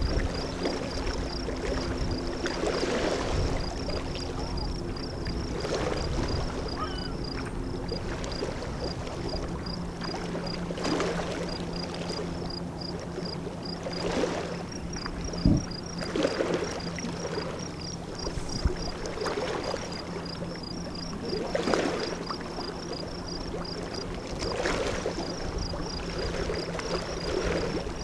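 Water splashing and lapping in a regular rhythm, a swish about every two and a half to three seconds, over a faint, fast, high-pitched ticking chirp.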